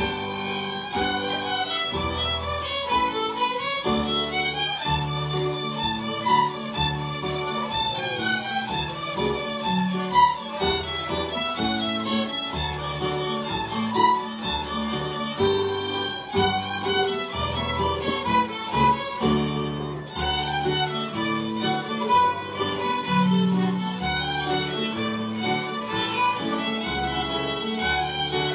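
A group of fiddles playing a lively tune together in unison, with lower held notes underneath.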